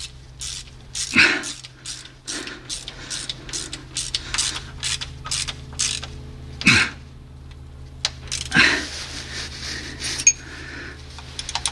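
Ratchet wrench clicking in quick strokes as it turns a bolt on a Mercedes 722.6 automatic transmission's oil pan, with a few louder metal knocks from the tool about a second in, near seven seconds and near nine seconds.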